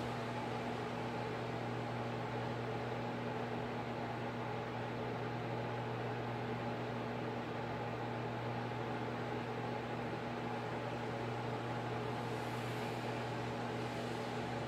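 Steady room hum: a constant low electrical or mechanical drone with a hiss over it, unchanging throughout.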